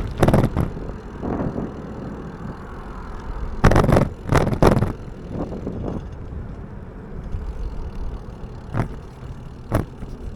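BMX bike being ridden and handled, tyres rolling with a low rumble and several clusters of knocks and clatters.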